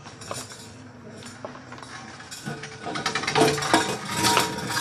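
Irregular metallic clicks and clanks, getting louder and busier from about halfway through.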